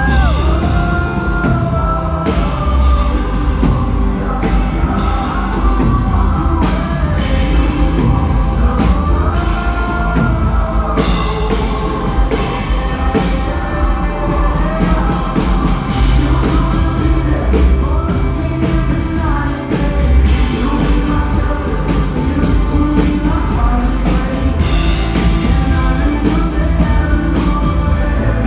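Live worship band playing a rock-style song at full volume, with drums keeping a steady beat and singing over the band.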